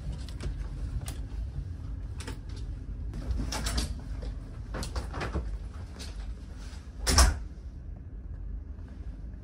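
Steady low rumble of a car ferry under way, heard inside a cabin, with scattered knocks and clicks; the loudest knock comes about seven seconds in.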